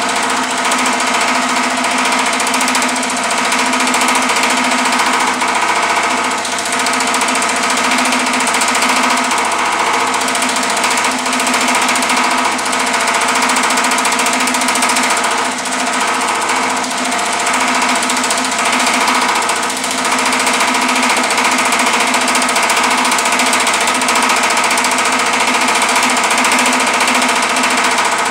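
Power hammer with shrinking dies pounding 18-gauge sheet metal in a fast, continuous stream of blows, shrinking the panel, with the metal ringing throughout. The pounding eases briefly now and then.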